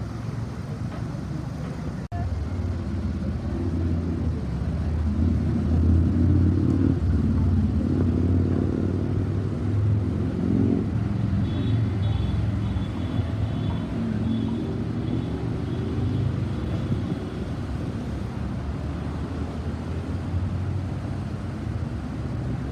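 City road traffic: cars and other vehicles passing with a steady engine rumble that swells in the first half. A faint high-pitched whine runs through part of the middle.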